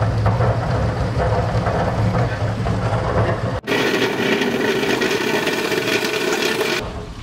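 Commercial potato peeler running with water: its motor hums steadily while waste water pours out of the drain below. About three and a half seconds in, the hum gives way to a brighter rushing sound of potatoes tumbling in water against the abrasive drum, heard close to the lid. The potatoes are almost peeled.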